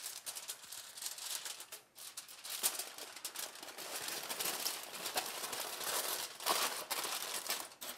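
Aluminum foil crinkling and rustling as a sheet is folded and creased by hand into a packet, with a brief pause about two seconds in.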